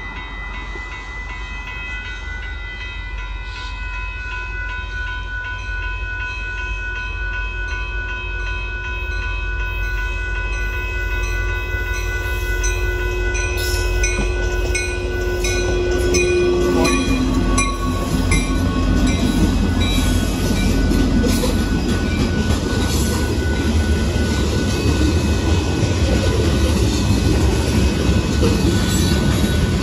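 Railroad crossing bell ringing steadily as a Union Pacific freight train comes on, with the locomotive horn sounding in a long blast that drops in pitch about seventeen seconds in as the engine passes. The rumble and clatter of the locomotive and loaded hopper cars rolling over the crossing then grows louder.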